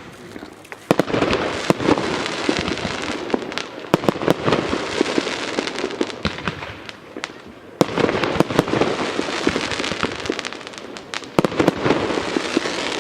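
Category 2 consumer fireworks going off: a dense crackling with many sharp pops, easing off around seven seconds in, then a second dense stretch from about eight seconds.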